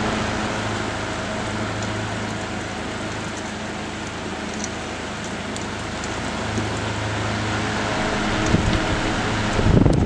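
Late-1930s Emerson Silver Swan table fan running: a steady rush of air from the spinning blades over a low motor hum, with the airflow buffeting the microphone near the end.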